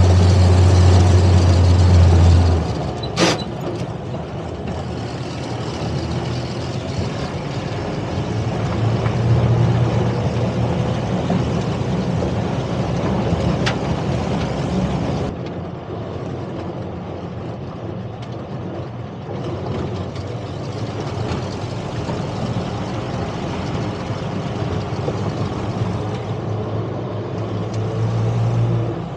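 M151 military jeep's four-cylinder engine running as the jeep drives, with road and wind noise. There is a strong steady hum for the first couple of seconds and one sharp knock about three seconds in.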